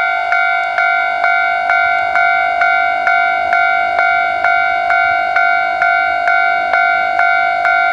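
Railway level crossing warning bell ringing steadily, a clanging tone repeated a little over twice a second, signalling that a train is approaching.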